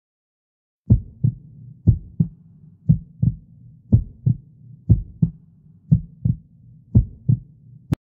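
Heartbeat sound effect: seven double 'lub-dub' thumps, about one a second, starting about a second in. A short sharp click comes at the very end.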